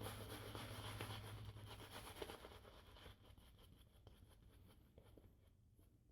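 Faint wet swishing and crackling of a shaving brush working lather, fading away after about three seconds.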